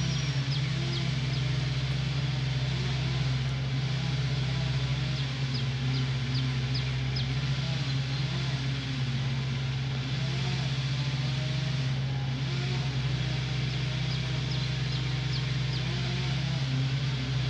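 An engine running steadily at constant speed, a loud low drone that does not change. A few short runs of faint high chirps sound over it.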